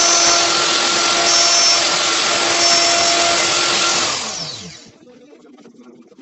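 An electric power tool's motor running at full speed with a steady whine, then switched off about four seconds in and winding down, its pitch falling as it stops.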